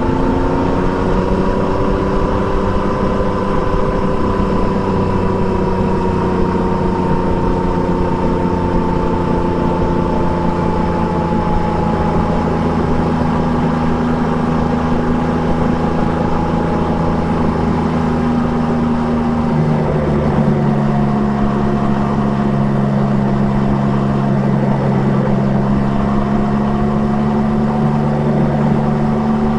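Triumph Trident 660's inline three-cylinder engine, fitted with an Akrapovic exhaust, running steadily under way with its pitch slowly drifting; about twenty seconds in the engine note steps down suddenly.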